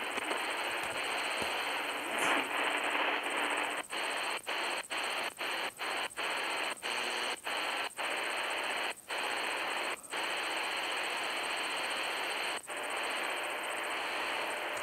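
Hiss of static from a Tecsun PL-310ET shortwave radio's speaker with no station in it. The static cuts out briefly about a dozen times in the middle, the muting of the DSP radio as it is tuned step by step across the band.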